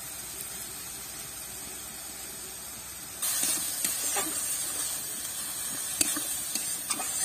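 Garlic, bay leaves and turmeric frying in hot oil in an iron karahi, a steady sizzle. The sizzle grows louder about three seconds in, when a metal spatula starts stirring. The spatula scrapes and clicks against the pan several times.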